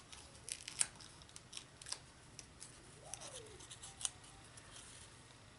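Faint paper-handling sounds: scattered light clicks and rustles as a small stamped cardstock circle on foam adhesive dots is handled and set onto a paper gift box. The sharpest clicks come about half a second in, just under a second in, and about four seconds in.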